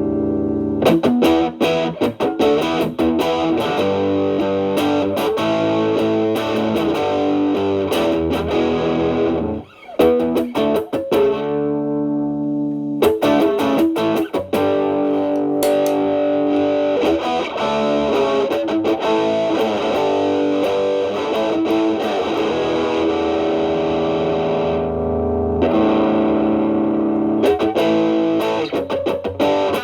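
Stratocaster electric guitar through an Xotic BB Plus preamp, its channel A stacked as a gain boost into channel B, into a Marshall Valvestate amp, giving a heavily distorted tone. The playing mixes quick picked runs with long held notes, with a brief break about ten seconds in.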